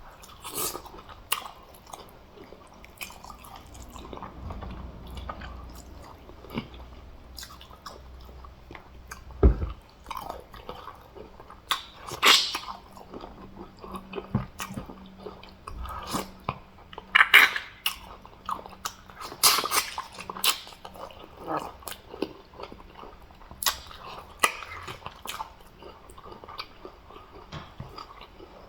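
Close-miked eating of fufu and soup with meat and fish: wet chewing, lip smacks and mouth clicks at an irregular pace, with several louder smacking bites.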